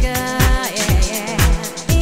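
Background music with a steady kick-drum beat, about two beats a second, under a gliding melody line.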